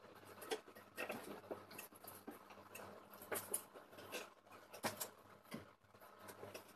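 Faint, irregular clicks and rustles of a person moving about and handling things, over a faint steady low hum.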